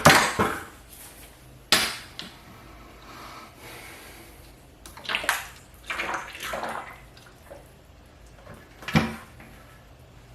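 Primer being poured and scraped out of metal paint cans, the liquid sloshing, with a few sharp metal clanks of the cans: one at the start, one near two seconds in and one near the end.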